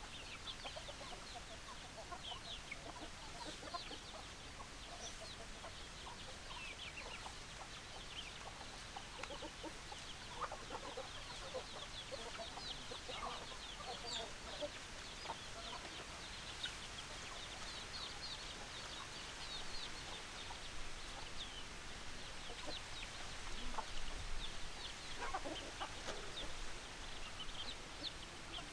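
Chickens clucking, with many short high-pitched calls running throughout and some louder calls near the end.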